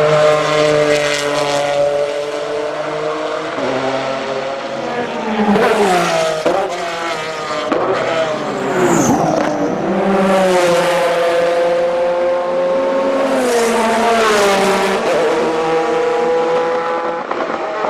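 Porsche 996 GT3 RSR's 3.6-litre flat-six running hard at high revs, its pitch dropping through a series of downshifts under braking about five seconds in, then climbing again through the gears and holding steady at high revs.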